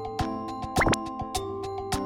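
Background music: held electronic notes over a light, regular clicking beat, with a quick rising slide in pitch just before the middle.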